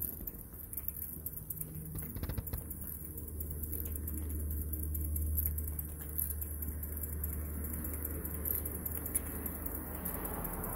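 Jensen toy steam engine running: the small single-cylinder engine turns its flywheel with a fast, light pattering, over a steady low hum.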